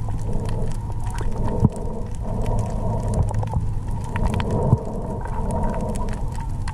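Underwater sound picked up through a camera's waterproof housing: a steady low rumble with scattered crackling clicks, and two louder knocks, one under two seconds in and one nearly five seconds in.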